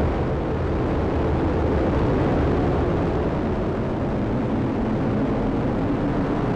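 Steady, deep rumbling roar of an Atlas V rocket climbing just after liftoff, its RD-180 first-stage engine and two solid rocket boosters firing at full thrust.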